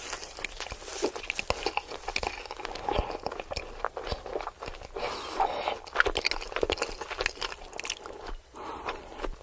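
A person eating: biting and chewing food with irregular crunches and crackles.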